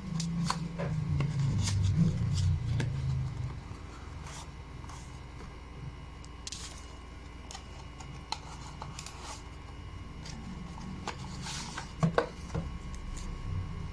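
Hands handling an earbuds box and its packaging during unboxing: scattered light clicks and taps with a few brief rustles of paper or plastic. Louder handling bumps over the first three seconds or so, and two sharp knocks about twelve seconds in.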